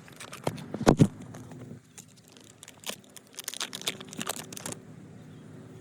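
Handling noises: crinkling and rustling with scattered clicks and knocks, the loudest knocks about a second in and a busy run of rustling near the end.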